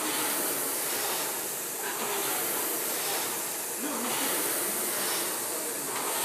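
Concept2 indoor rowing machine's air-resistance flywheel whooshing, surging with each stroke in a steady rhythm.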